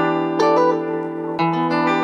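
Intro music of plucked string chords, with new chords struck about half a second in and again about a second and a half in.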